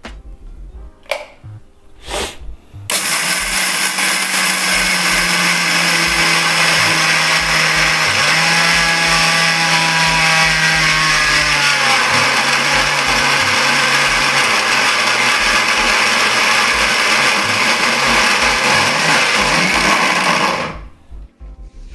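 Electric mixer grinder running at full speed for about eighteen seconds, grinding roasted peanuts in its small steel dry-grinding jar, then switched off. A couple of short clicks come just before it starts.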